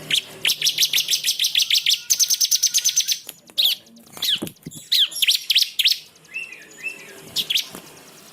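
Small songbirds, a cililin and a ciblek, singing: a fast rattling trill of repeated high notes for about three seconds, then shorter, separate chirping phrases.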